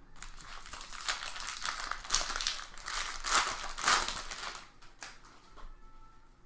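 Crinkling and crumpling of a foil trading-card pack wrapper being handled and opened, loudest over the first four seconds and then dying away.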